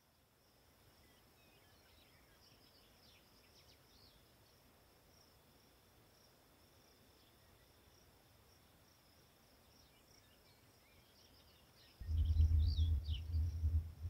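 Faint evening insect song, one steady high note, with scattered faint bird chirps. About twelve seconds in, a much louder low rumbling hum comes in.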